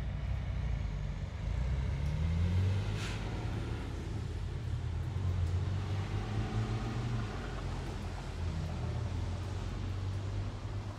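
Road traffic in the rain: a steady rumble of engines and tyres on the wet road with a hiss over it. One vehicle's engine rises in pitch about two seconds in, and a brief sharp hiss sounds about three seconds in.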